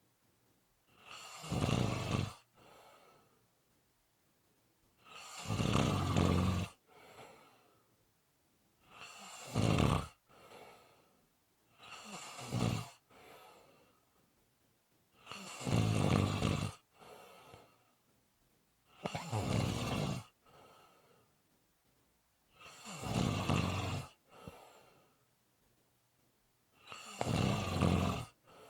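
Steady snoring: one loud snore on each in-breath, eight of them, regularly spaced every three to four seconds, each followed by a softer out-breath.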